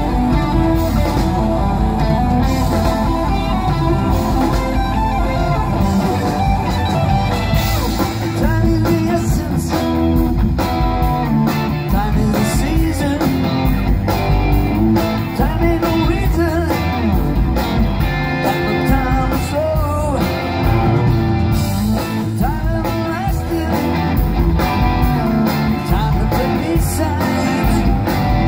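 Rock band playing live through a PA: electric guitars, bass guitar and drums with keyboards, and a singing voice over the band.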